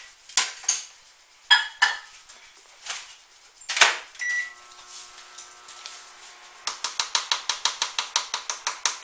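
Microwave oven being loaded and started: a dish clinks and the door knocks shut, a single keypad beep sounds about four seconds in, and the oven's steady hum follows. From about two-thirds of the way through, a rapid even run of sharp clicks, about ten a second, sounds over it.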